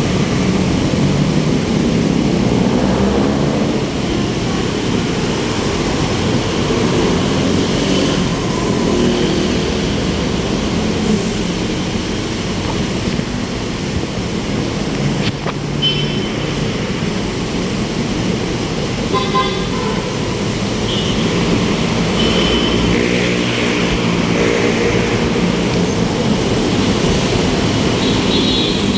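City road traffic heard from a bicycle riding among vehicles: engines running steadily, with several short car horn toots scattered through.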